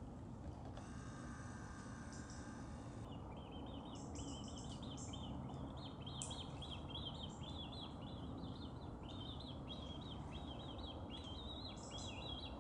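Birds calling: a rapid, continuous run of short high chirping notes starting about three seconds in, over a steady low outdoor background. Before that, a steady high ringing tone lasts about two seconds.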